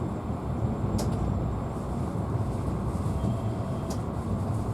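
Passenger train running, heard from inside the carriage: a steady low rumble of wheels on the rails, with two short sharp clicks about three seconds apart.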